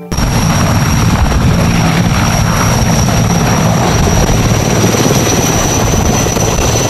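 Erickson Air-Crane (Sikorsky S-64 Skycrane) heavy-lift helicopter hovering low: the fast, steady beat of its rotor blades under a high, steady turbine whine.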